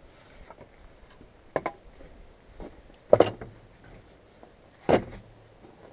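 Split firewood being set down onto a wood stack: three hollow wooden knocks about a second and a half apart, the middle one loudest and doubled.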